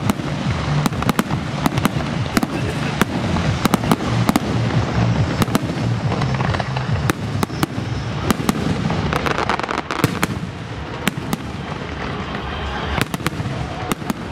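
Fireworks going off in a dense string of bangs and crackles, over music with a steady bass line.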